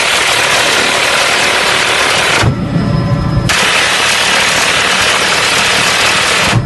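Minigun firing from a Bell 206 Jet Ranger helicopter: two long bursts, each a continuous dense buzz of about three seconds that starts and stops abruptly. In the second-long gap between them the helicopter's turbine whine and rotor throb come through.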